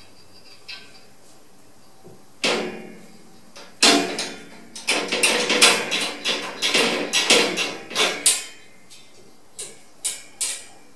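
Steel wire cage door and its sliding bolt latch rattling and clanking in irregular bursts as a cat paws at the bolt, trying to work it open. The rattling is densest in the middle, then three separate clanks near the end.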